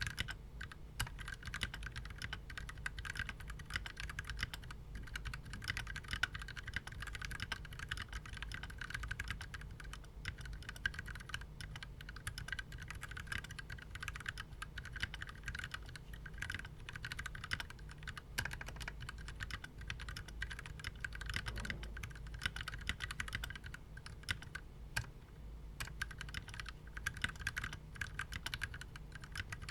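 Continuous typing on a KBDfans Tofu mechanical keyboard with Gateron Yellow linear switches: a steady, dense stream of keystroke clicks with no pauses.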